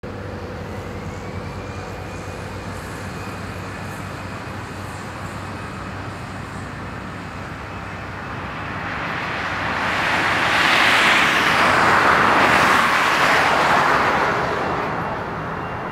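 Road traffic noise: a car passes close by, its tyre and engine noise swelling to a peak about halfway through and fading away, over a low steady background rumble.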